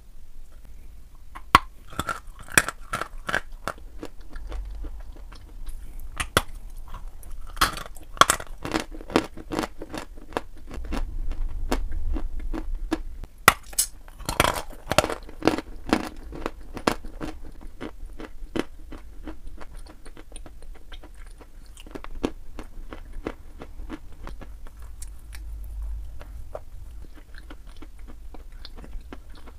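Dry white chalk being bitten and chewed: sharp, crisp crunches coming in several thick runs, thinning out over the last ten seconds or so.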